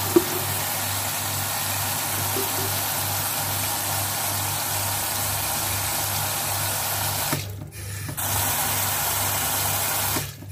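Tap water pouring in a steady stream into a glass jar packed with vegetables, filling it with water for pickle brine. The flow briefly drops out about three-quarters of the way through.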